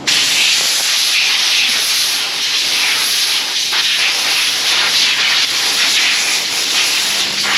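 Compressed-air blow gun blowing leftover blasting sand off a freshly sandblasted suppressor, a loud steady hiss that cuts off suddenly near the end.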